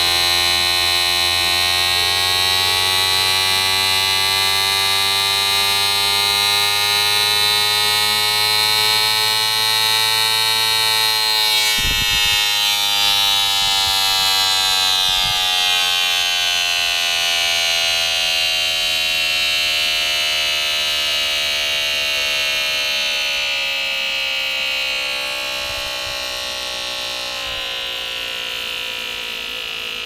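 Homemade mini air raid siren built from a VCR head drum, rim-driven by a motor, sounding a shrill wail. Its pitch climbs slowly for about ten seconds, then after a couple of knocks it falls slowly as the rotor coasts down off the drive.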